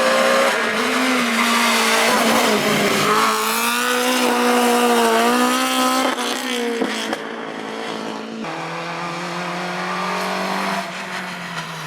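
Rally car engine revving hard, its pitch rising and dropping as it goes through the gears, loud for about six seconds, then quieter with a lower, steadier engine note.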